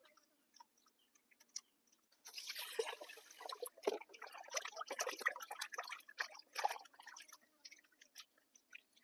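Wet squelching and splashing of food being handled by hand in water, a dense crackly run of small clicks lasting about five seconds.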